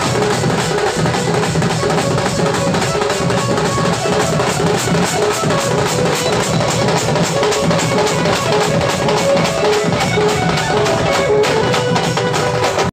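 Melody band music with a fast, steady drum beat of bass drum, snare and other percussion under a held keyboard melody, briefly thinning out near the end.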